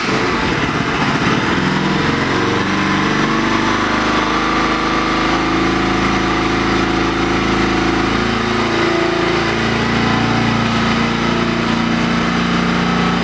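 Bajaj Pulsar NS200's single-cylinder engine idling just after a start on choke in the cold. Its revs waver up and down for the first several seconds, then settle to a steady idle.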